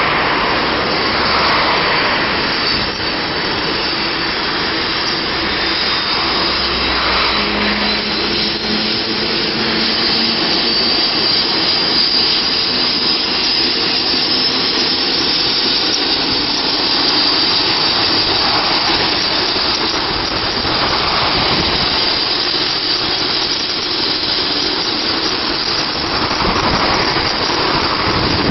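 Medical helicopter's turbine engine running on the pad before takeoff, a steady rushing noise with a high turbine whine over it.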